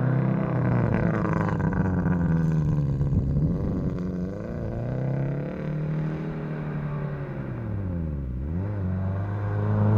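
OHC car engine with a loud exhaust note, revved up and down several times, its pitch dipping sharply about eight seconds in before climbing again; its buzzy tone sounds like a grass trimmer.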